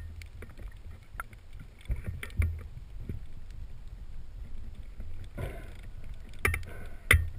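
Low rumble of water moving around a camera held underwater, with scattered sharp clicks and knocks. A brief swish of moving water comes about five and a half seconds in, and the loudest clicks come near the end.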